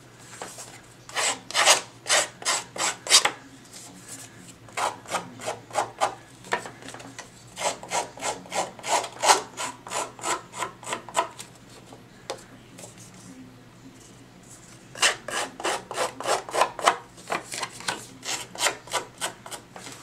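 Side of a scissor blade scraped repeatedly along the edges of a piece of cardstock to rough them up, in quick runs of rasping strokes, several a second, with short pauses between the runs.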